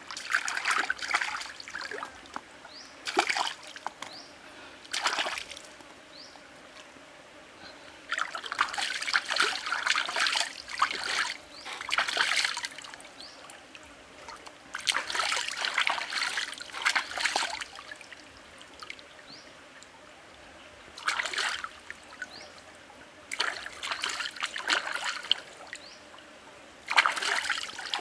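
Water splashing and sloshing in bursts of a second or a few seconds as a raw chicken is washed by hand in a shallow stream. Between the bursts the stream trickles quietly.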